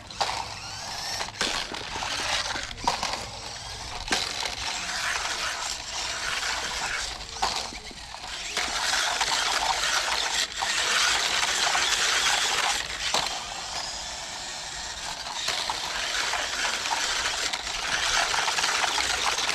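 Toy RC monster truck driving on cement: a continuous gritty rolling and crunching noise with scattered clicks and knocks, growing louder and fading as it drives closer and farther away.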